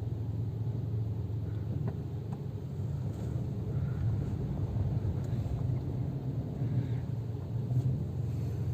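Car engine running with a steady low rumble, heard from inside the car.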